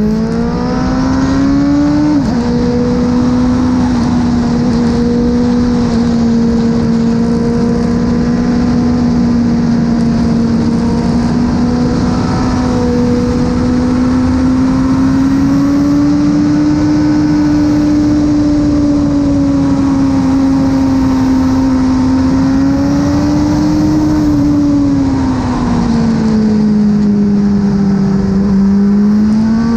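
BMW S1000RR inline-four sportbike engine with an Akrapovic exhaust, heard on board at track speed with wind rush under it. It revs up, drops sharply on an upshift about two seconds in, then holds a high engine note that rises and falls gently with the throttle, dipping lower near the end before climbing again.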